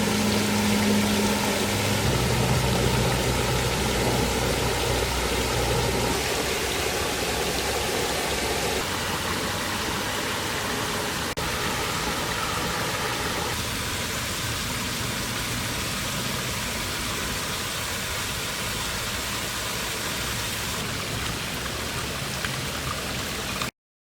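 Steady rushing hiss of water, with a low engine hum under it for roughly the first nine seconds. The sound cuts off abruptly just before the end.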